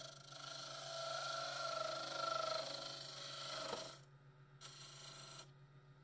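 A steel lathe tool scraping into a small wooden ring spinning on a wood lathe, a hiss with a wavering whine, over the lathe motor's steady hum. The scrape stops about four seconds in, and a shorter one follows a second later.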